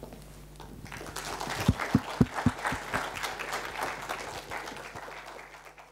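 Audience applauding. The clapping builds up over the first second or two, then fades out near the end.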